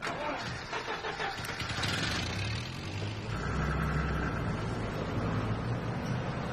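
Car engine running, with a noisy start and a steady low hum setting in about three seconds in.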